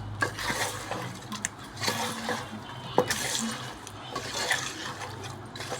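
Water splashing and pouring, with a few sharp clinks.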